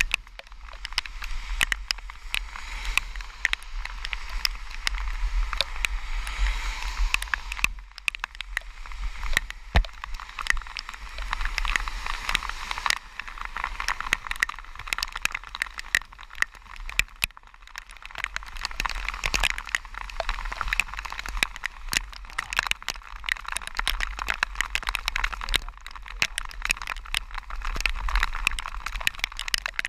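Heavy rain striking a GoPro camera's housing as a dense stream of irregular crackling ticks over a steady hiss, with a low rumble underneath.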